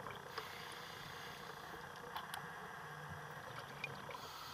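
Faint underwater ambience: a low, even hiss with a few small clicks scattered through it.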